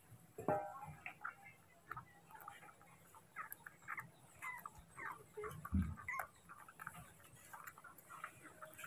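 Baby monkey suckling on a milk bottle's teat: faint, irregular smacking and clicking, with a soft bump a little past halfway.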